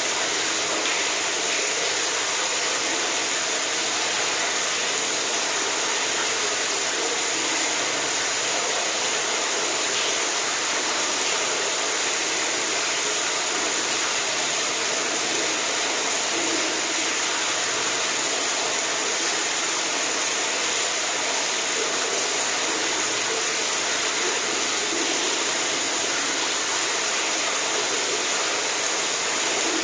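Steady rushing water, an even unbroken hiss with no distinct splashes or changes.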